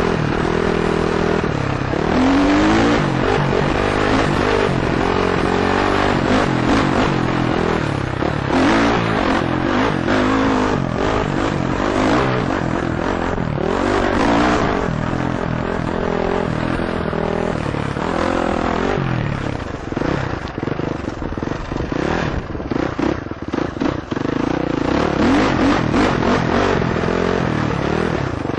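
KTM 450 four-stroke single-cylinder dirt bike engine under way, revving up and down repeatedly with the throttle. Stones and dirt clatter and scrape underneath. The revs turn choppy for a few seconds about two-thirds of the way through.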